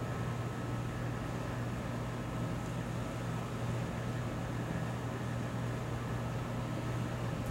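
A steady low mechanical hum over a faint even hiss, unchanging throughout.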